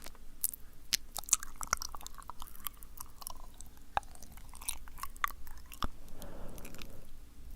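Wet, sticky mouth sounds made close to the microphone: irregular lip smacks and tongue clicks.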